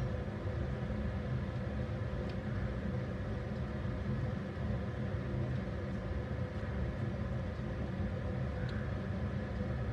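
A steady low hum, unchanging throughout, with two faint soft ticks.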